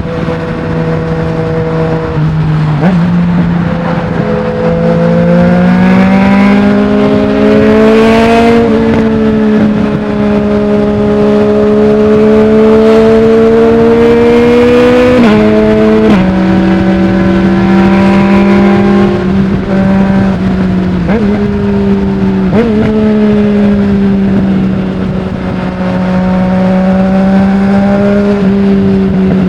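Yamaha MT-09's three-cylinder engine running through a full Akrapovic exhaust with the dB killer removed, under steady throttle as the motorcycle rides along. The pitch climbs slowly, then drops suddenly about halfway through, as at an upshift, then holds steady with a few smaller dips.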